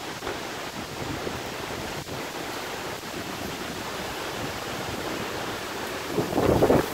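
Steady hiss of rain falling. About six seconds in, a louder gust of wind buffets the microphone.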